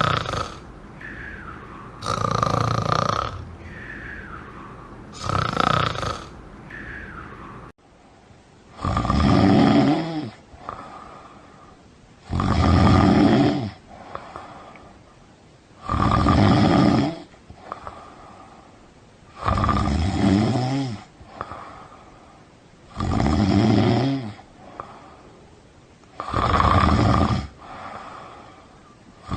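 A person snoring: loud snores on each breath in, with quieter breathing out between them. About eight seconds in, a different snore recording takes over, and its snores come more slowly, about every three and a half seconds.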